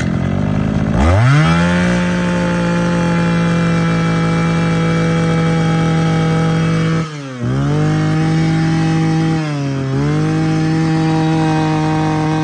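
Mitsubishi TL231 brush cutter's 23 cc two-stroke engine starting and revving up to a high steady speed within about a second and a half. It is held at high throttle with two brief dips in revs, about seven and nine and a half seconds in.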